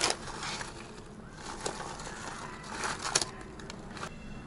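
Plastic bag of shredded pizza cheese crinkling as the cheese is shaken out and falls onto sauce and parchment paper, with a few sharper crackles about three seconds in.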